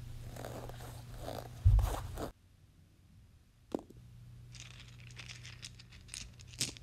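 Plastic LEGO bricks being handled and set in place: crunching and scraping over a low hum, with a hard knock just under two seconds in. After a short gap come a single click and a run of small clicks and rustles near the end.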